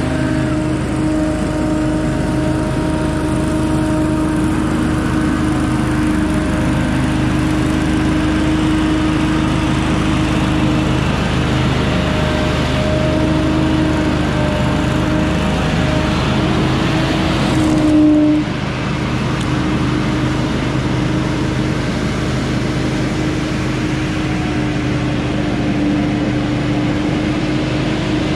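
Gas-powered leaf blower engine running steadily, with a brief louder surge about two-thirds of the way through before settling back.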